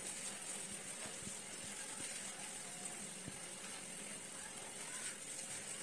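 Soft rustling of tissue paper as its folded layers are pulled apart by hand, with a few faint crinkles, over a steady background hiss.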